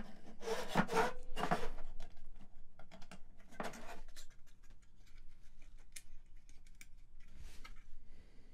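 Small circuit-board panels and a plastic connector block of a Modal Craftsynth kit being handled and pushed together: scattered light clicks and scrapes, busiest in the first few seconds and fainter after about four seconds.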